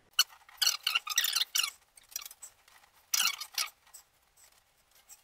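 Short hissy rubbing and breathing noises from a man straining to keep his balance kneeling on an inflated exercise ball, in a cluster over the first two seconds and again briefly around three seconds in.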